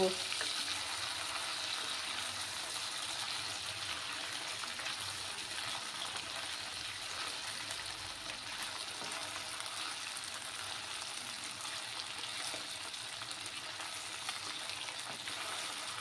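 Small tangra fish frying in hot mustard oil in a kadai, giving a steady sizzle.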